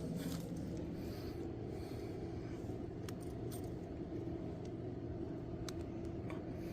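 A steady low mechanical hum with a few faint light clicks and clinks.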